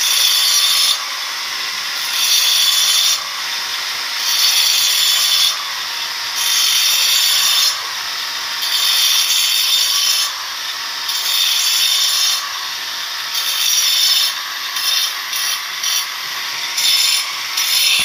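Angle grinder with a cutting disc scoring grooves into the face of a flour-mill millstone while the stone is being dressed. It runs in repeated passes, getting louder as the disc bites into the stone and easing between passes, about once every two seconds, then stops at the end.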